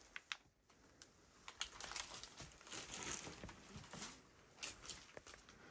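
Faint, irregular crackling and crinkling of debris being disturbed, with scattered small clicks.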